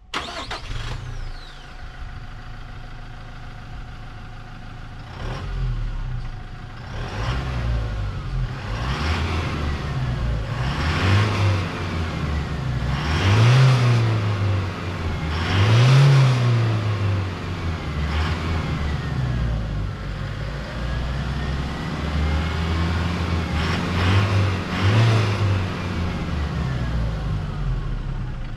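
Toyota HiLux Rogue's 2.8-litre turbo-diesel four-cylinder running and revving, its pitch climbing and falling again and again.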